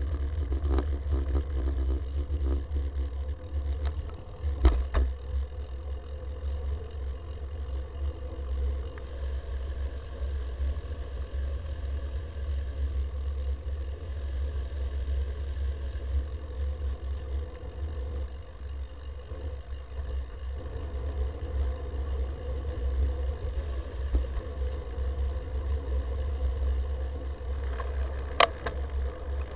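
Wind rumble and road vibration picked up by a handlebar-mounted camera on a moving bicycle, with a couple of sharp knocks, about five seconds in and near the end.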